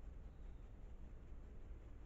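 Quiet outdoor background: a faint, steady low rumble with no distinct call or knock.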